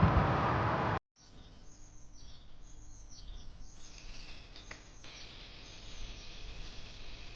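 A loud, even rushing noise cuts off abruptly about a second in. Small birds then chirp and trill in quick repeated high calls for a few seconds, giving way to a fainter, steady high-pitched chorus.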